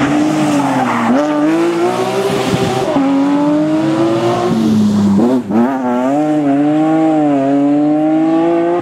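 Rally car engine driven hard. Its revs climb and drop back several times, as at gear changes, with a short break about five and a half seconds in.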